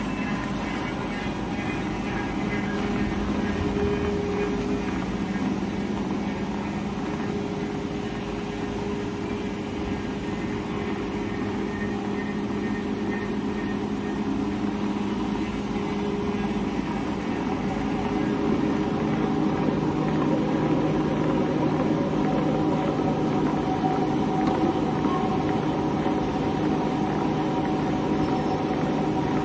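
Tissue paper slitting and rewinding machine running: a steady mechanical hum with several held tones. About two-thirds of the way through it gets a little louder and its low tone drops slightly.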